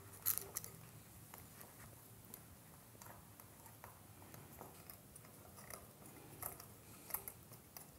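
Faint, irregular small metal clicks and scrapes of a small Allen wrench turning out the screws that hold a metal belt clip on a camera holster.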